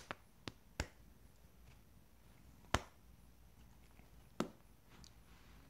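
Tabby cat biting and chewing at a cloth: about six sharp clicks, the loudest a little under three seconds in and another about four and a half seconds in.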